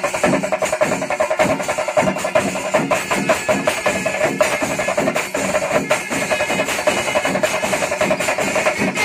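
Chenda melam: many chenda drums beaten with sticks in a dense, fast stream of strokes, with ilathalam hand cymbals clashing in time.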